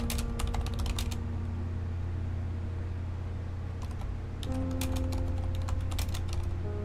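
Typing on a Corsair mechanical keyboard: rapid key clicks in two bursts, one at the start and one from about four and a half seconds in, with only scattered keystrokes between. Soft background music plays throughout.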